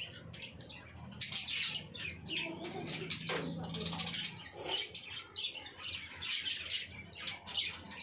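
Budgerigars chirping and chattering, a quick, unbroken run of short high calls.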